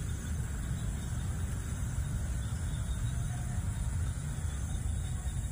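Wind buffeting the microphone: a steady low rumble with no distinct events.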